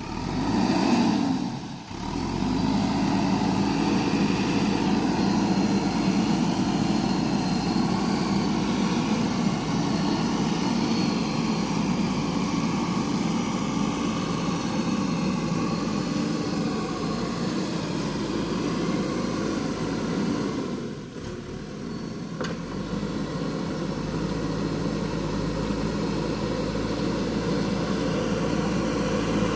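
JCB backhoe loader's diesel engine running steadily as the machine works, with a brief swell in engine sound about a second in and a short dip in level about three-quarters of the way through.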